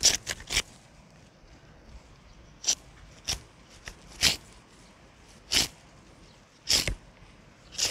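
A long blackberry (bramble) cane drawn repeatedly through a handheld dethorning tool, which scrapes off thorns and leaves with a short scratchy swish on each pull. There are about eight strokes: three quick ones at the start, then roughly one a second, each about the same length.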